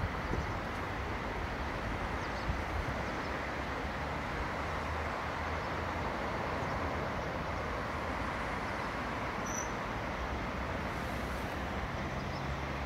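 Steady rush of a swollen, muddy river in spate, with a faint low hum of road traffic underneath.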